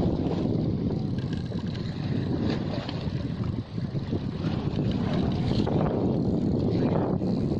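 Wind buffeting the microphone on an open fishing boat at sea, a continuous gusting rumble that rises and falls, with a brief dip a little past halfway.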